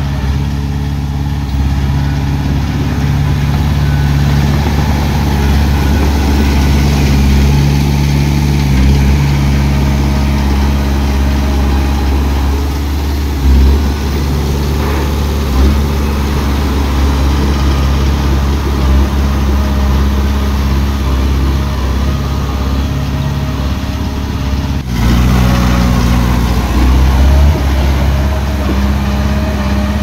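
Heavy diesel engine of construction machinery running steadily at low revs, with two brief low thumps midway. Near the end the engine note changes abruptly to a different pitch.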